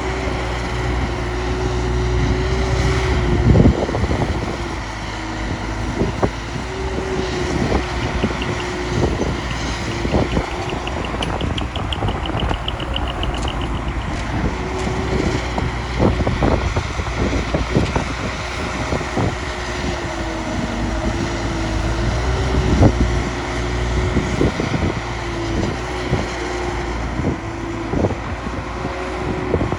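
Heavy earthmoving machinery at work: a diesel engine running with a low rumble and a steady whine that dips in pitch now and then, over frequent short knocks and clanks.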